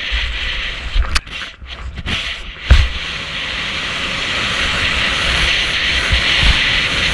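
Skis hissing over snow during a fast downhill run, with wind buffeting the microphone in uneven low rumbles. The hiss builds as speed increases, and there is a sharp thump about a third of the way through.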